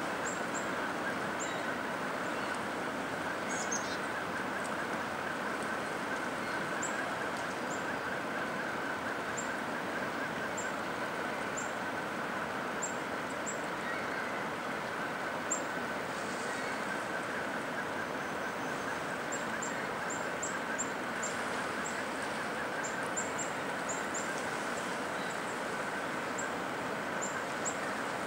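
Outdoor ambience of a steady rushing noise with many brief, high-pitched bird chirps scattered through it.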